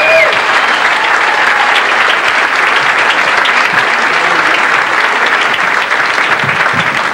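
Comedy-club audience applauding steadily, dying down a little near the end.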